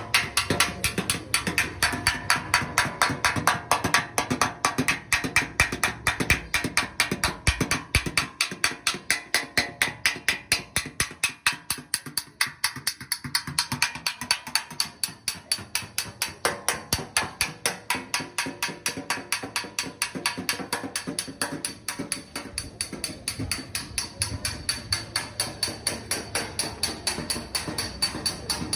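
Metal bodywork tool working on a car body panel: a steady run of sharp clicks or taps, about four to five a second.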